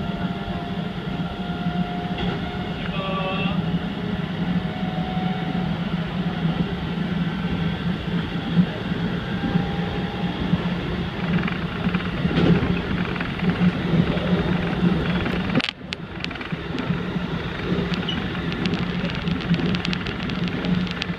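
Keikyu 2100-series electric train running at speed, heard from inside the front car: a steady rumble of wheels and running gear on the rails. About three-quarters of the way through the sound drops sharply for an instant, then carries on.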